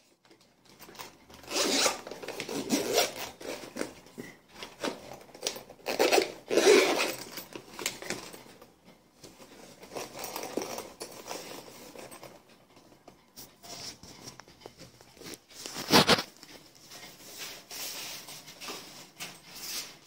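Zipper of a small sling pouch being worked in several short rasping pulls, with rustling as the bag and its strap are handled. A single sharp click late on.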